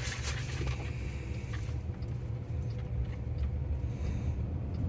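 Low steady rumble inside the cabin of a Waymo driverless car, with a faint steady hum and a few light ticks.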